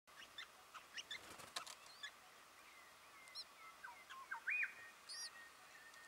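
Birds chirping and calling: scattered short chirps and thin whistled notes, with a few sharp clicks about a second and a half in. The loudest is an arched whistled note about four and a half seconds in.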